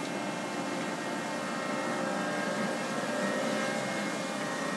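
Binns & Berry Trident L850 oil country lathe running in its low spindle range (4 to 50 RPM): a steady mechanical hum from the headstock drive, with several steady tones over it.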